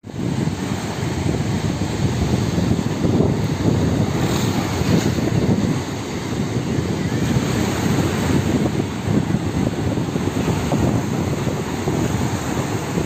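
Wind rumbling and buffeting on the microphone over the rush of small waves breaking and washing up a sandy shore.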